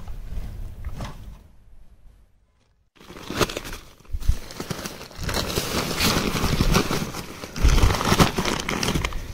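Wind rumbling on the microphone, then after a brief silence about 2.5 seconds in, a nylon tent carry bag rustling and crinkling as a hand grabs its straps and pulls it open, with a few dull thumps as the bag is moved.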